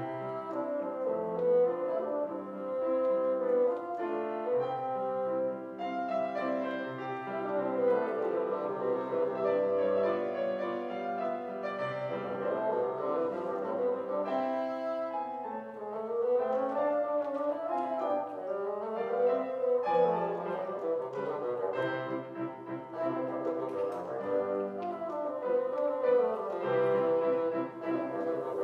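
Classical duet: a wind instrument plays a sustained, singing melody with a few smooth slides in pitch, over grand piano accompaniment.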